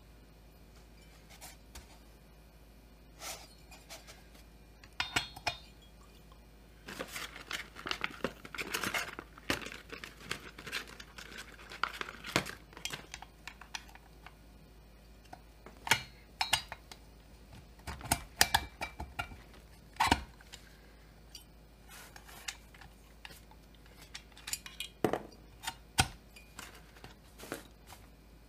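Irregular clicks, taps and scraping of metal parts being handled as a chainsaw cylinder is slid down over the piston, held in a piston ring compressor, and set onto the crankcase. A denser stretch of scraping and rustling comes about a quarter of the way in, with sharper knocks scattered through the rest.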